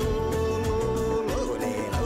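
Background music with a steady beat and a long held melody line that turns in small ornaments.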